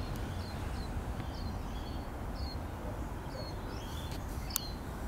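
A small bird chirping over and over, short high chirps about twice a second, over a low steady background rumble. One small sharp click comes near the end.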